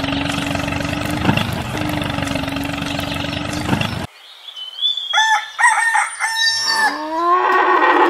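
A miniature tractor's small motor running with a steady hum and a gritty rattle, cut off suddenly about four seconds in. After a moment's quiet, a rooster crows and chickens cluck.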